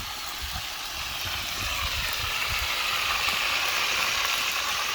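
Parrot fish frying in hot oil over a wood fire, a steady sizzling hiss that swells and eases off again through the middle, with a low rumble underneath.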